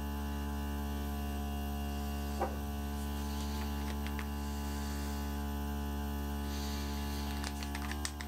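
Nebulizing diffuser's replacement 12 V micro air pump running with a steady hum, driving the diffuser as it mists. A few faint clicks come near the end.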